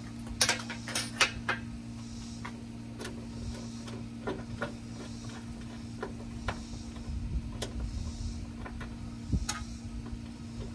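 Hand ratchet with a 10 mm socket loosening nuts on the underside of a Jeep hood: a quick run of metal clicks in the first second and a half, then single clicks at uneven gaps. A steady low hum runs underneath.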